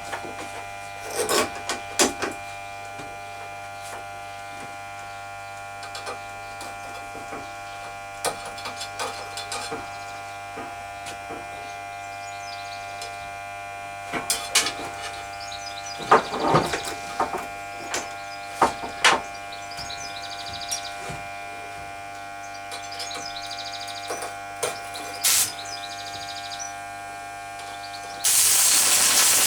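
Blacksmithing on a rebar hook: a steady hum runs throughout, with irregular knocks of metal being struck and handled. A loud burst of hiss lasts about a second near the end.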